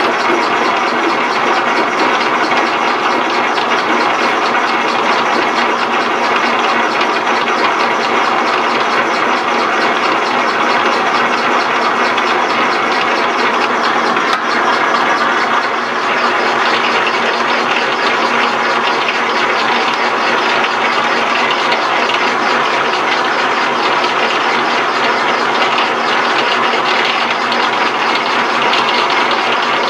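1967 South Bend 13-inch lathe running at slow speed while single-point cutting a thread on a compound screw. Its gear train makes a steady, even clatter.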